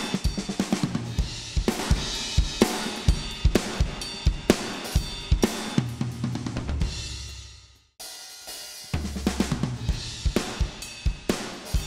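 Recorded drum kit playing a groove of kick, snare, hi-hat and cymbals, first through the Waves Renaissance Compressor and later with the compressor bypassed. The playing dies away to nothing and starts again from the top about eight seconds in.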